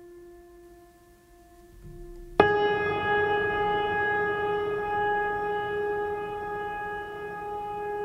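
Meditative background music: a bell-like tone struck sharply about two and a half seconds in, its several steady pitches ringing on and slowly fading, over the quiet tail of an earlier tone.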